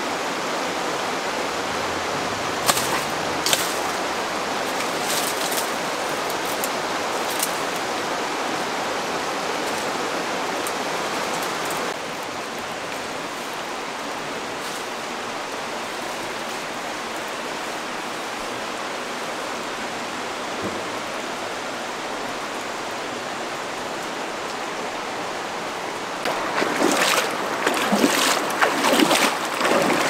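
Steady rushing of a stream, with a few sharp snaps about three seconds in and again a few seconds later. Near the end, louder splashing and gurgling water.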